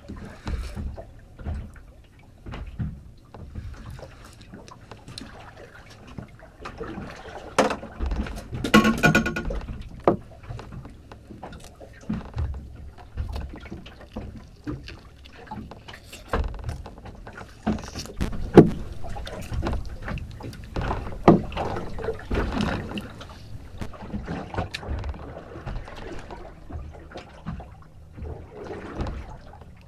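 Handling noises aboard a small fishing boat at sea: scattered knocks, clicks and thuds of rod, reel and tackle against the boat over a low rumble of wind and water. The sharpest knocks come a little past halfway.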